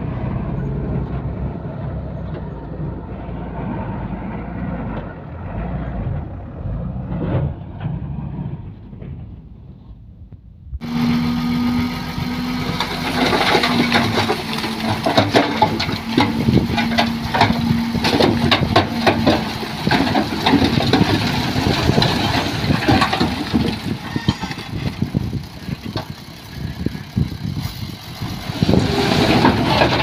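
Heavy earthmoving machinery's diesel engine running at work. About eleven seconds in the sound cuts abruptly to a brighter, closer machine sound: a steady hum with many rapid clanks and knocks.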